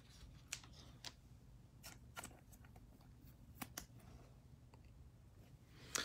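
Near silence with a few faint, scattered clicks from a chromium trading card being handled and tilted between the fingers.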